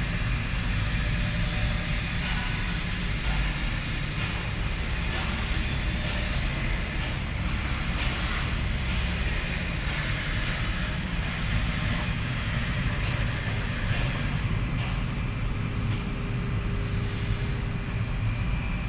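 Heavy diesel earthmoving machinery running steadily, a deep engine rumble with a high hiss over it and a few faint clanks.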